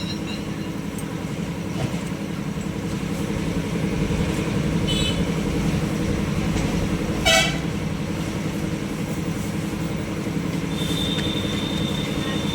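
New Holland 3630 tractor's three-cylinder diesel engine running steadily with the throttle opened a little. It gets slightly louder in the middle, with a couple of brief higher-pitched sounds over it.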